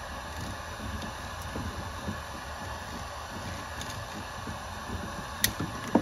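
Steady background hum with low rustling and knocking of hands working a tool among flexible PVC spa plumbing, and one sharp click a little before the end.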